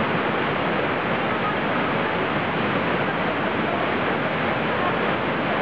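Steady rushing of a mountain stream through a narrow rock gorge.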